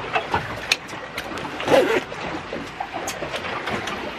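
Twin Suzuki outboard motors running quietly as the boat moves slowly, with a few sharp knocks and a short voice-like sound a little under two seconds in.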